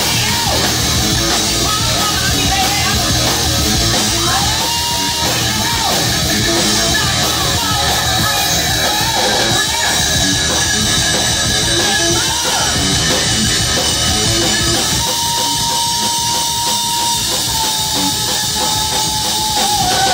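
Live heavy metal band playing loudly: distorted electric guitars, bass and drum kit, with a singer yelling and singing over them.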